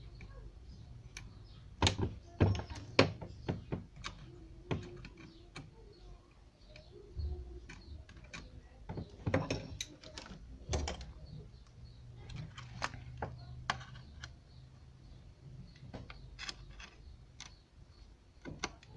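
Irregular clicks and light knocks of small hand tools working on a satellite receiver's circuit board, as a transistor is cut free.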